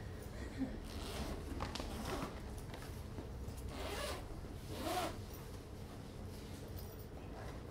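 Zipper of a large fabric duffel bag being pulled open in several short drawn strokes, the strongest around four and five seconds in.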